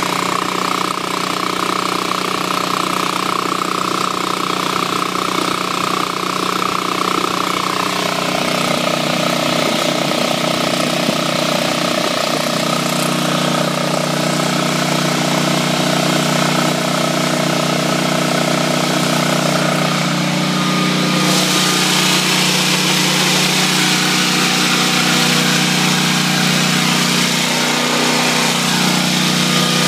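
Generac XG8000E portable generator's single-cylinder engine running steadily inside its shed enclosure, warmed up and carrying a light load, probably under a third of its capacity. The tone shifts about eight seconds in and again around twenty seconds, with more hiss after the second change.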